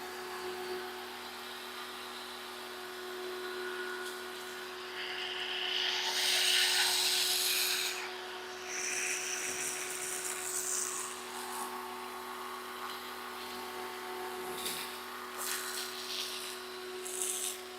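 Pressure washer running with a steady motor hum while its foam cannon sprays soap in hissing bursts, the loudest from about five to eight seconds in and shorter ones later.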